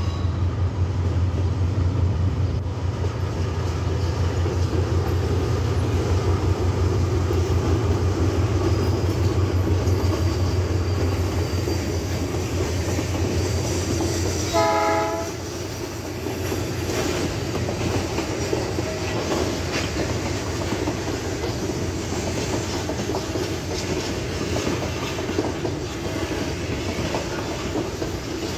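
Freight train of hopper wagons rolling past close by, its wheels clacking over the rail joints. A deep pulsing rumble fills the first half and eases about halfway through, and a brief horn-like tone sounds once at about the same point.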